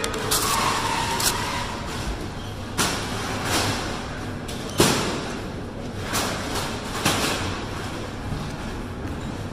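A series of sharp knocks and thumps, about seven spread over several seconds with the loudest about five seconds in, over a steady background hum; a short falling squeak sounds within the first second or so.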